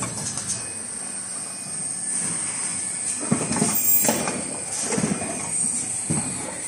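Automatic N95 cup-mask production machine running, its mechanisms clacking and knocking irregularly over a steady high-pitched whine, with the knocks most frequent in the second half.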